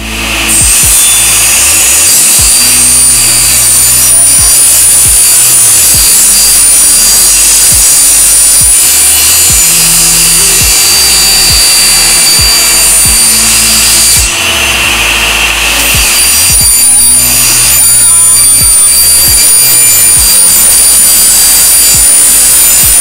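Table saw running and cutting across a wooden cabinet door: a steady high whine and hiss from the blade, dipping briefly about two-thirds of the way through. Background music with a deep bass line plays underneath.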